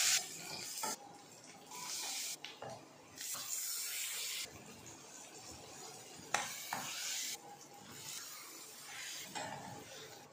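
Onions and tomatoes sizzling in hot oil in a stainless steel kadai, with a steel spoon stirring and clinking against the pan. The sizzle comes and goes in several separate spells.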